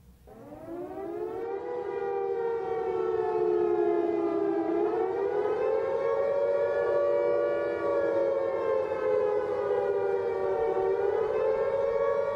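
Air-raid siren winding up from a low pitch over the first two seconds, then wailing with a slow rise and fall in pitch.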